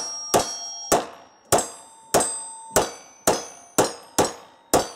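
Handgun fired about ten times at a steady pace, roughly two shots a second. Most shots are followed by the ring of a struck steel target.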